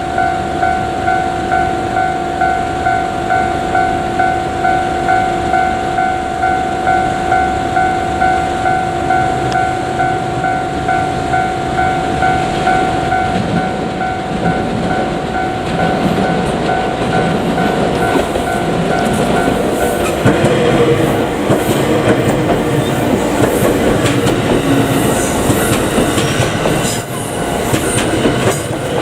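A Japanese level-crossing alarm rings in a steady pulsing electronic clang, about one and a half strikes a second. From about twenty seconds in it is overtaken by the JR Kyushu 787-series "36ぷらす3" train passing through the crossing, its wheels rumbling over the rails, with thin wheel squeal near the end.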